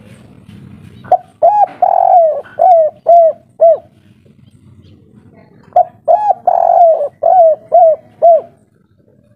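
Spotted dove cooing twice: each phrase is a short run of notes with one longer, drawn-out coo in the middle and three short 'kuk' notes at the end, the three-note ending that marks a 'kuk3' singer.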